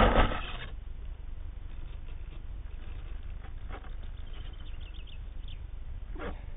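Wot 4 Mk3 model plane's motor cutting out, its sound dying away within the first second. After that there is only a low wind rumble on the wing-mounted camera's microphone, with a few faint chirps and one brief falling sound near the end.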